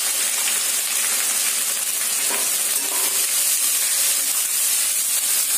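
Chopped onions sizzling steadily in hot oil in a metal kadai, stirred with a metal spatula, with a few faint scrapes against the pan.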